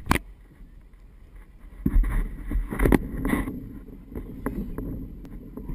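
Wind rumbling on the microphone of an action camera mounted on a windsurf boom. There are knocks and handling thumps from the rig, loudest in a cluster about two to three seconds in.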